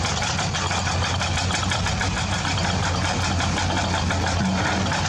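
Excavator engine idling sound, a steady low rumble with a fast rattle, played for a toy excavator.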